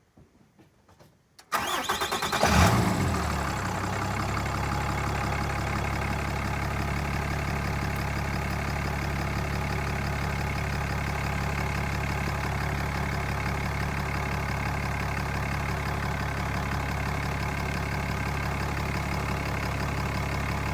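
Truck engine cranking and firing up about a second and a half in, briefly surging as it catches, then settling into a steady idle.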